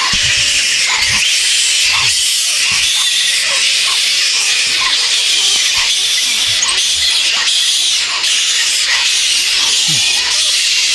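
A large roosting colony of flying foxes (fruit bats) calling: a steady, dense chatter of shrill squeals and screeches from many animals at once, with short calls repeating every half second or so.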